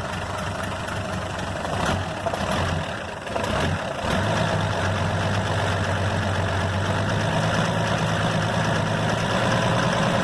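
Chevrolet Opala engine running, given a brief blip of throttle about two seconds in, then settling back to a steady, somewhat louder run. The owner hears a light tac-tac-tac knock from it as it comes off the throttle, which he takes for a worn connecting-rod bearing, though he wonders if it could be a lifter or camshaft bushing; an exhaust gasket leak adds a noise of its own.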